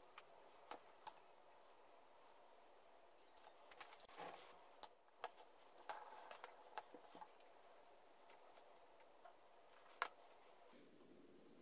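Faint, scattered clicks and light taps of small wooden parts being handled and fitted together on a wooden toy helicopter, over quiet room tone, the sharpest click about a second in.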